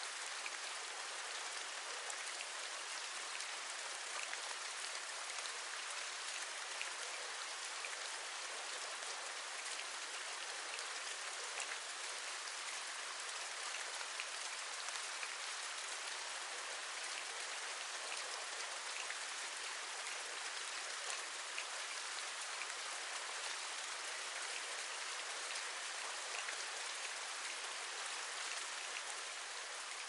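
Steady rain falling, an even hiss of many small drops with faint individual drop ticks throughout.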